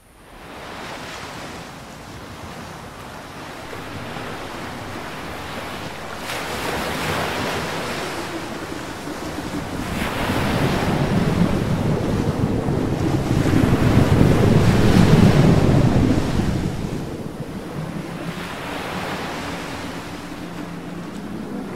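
Surf and wind: a wash of waves that slowly builds to its loudest about two-thirds of the way through and then eases off, with wind noise on the microphone. A faint low steady hum comes in near the end.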